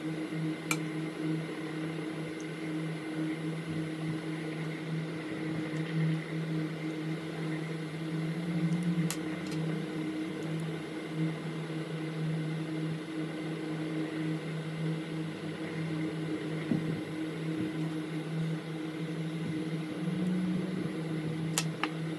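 Steady whirring hum of a small machine that holds at one pitch throughout, with a few faint sharp clicks.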